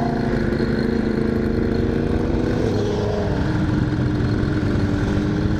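Royal Enfield Continental GT motorcycle engine running while riding, its revs easing off a little over the first few seconds and then holding steady, under heavy wind rumble on the microphone.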